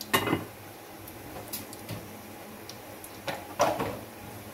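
Whole spices frying in hot oil in a metal pot: cinnamon, cardamom, cloves and black peppercorns. A low steady sizzle runs under scattered sharp crackles, with the loudest pops right at the start and about three and a half seconds in.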